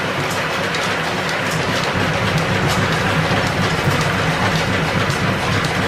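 1925 American 18-inch engine lathe running under power with a steady mechanical clatter from its gearing and drive, while the tool takes a cut in the turning work.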